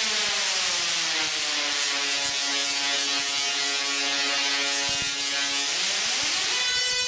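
Zeusaphone ZX-160 singing Tesla coil arcing into the air, its sparks giving a harsh buzzing tone. The pitch slides down, holds low and steady for several seconds, then sweeps back up near the end as the drive frequency is changed.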